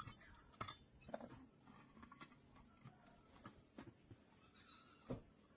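Faint, scattered clicks and knocks, with louder ones about half a second in, about a second in, and near the end.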